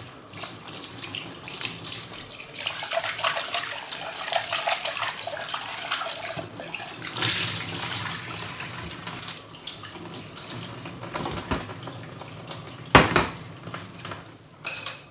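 Kitchen tap running water into a stainless steel pot as it is rinsed over a metal sink, the water splashing and swirling in the pot. There is one sharp knock about two seconds before the end.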